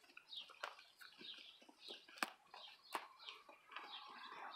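Birds chirping, a quick run of short high chirps several a second, with a few sharp snaps; the loudest snap comes a little past the middle.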